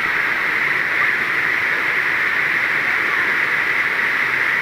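Waterfall and stream rushing: a steady, even hiss of falling water.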